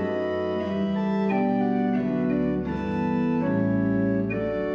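Organ playing the slow instrumental introduction of a church hymn: sustained chords that change about once a second over a held bass note.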